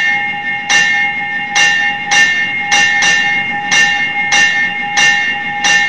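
Sound effect of a train going by: a loud steady horn chord over a regular clatter of wheels, about two clacks a second.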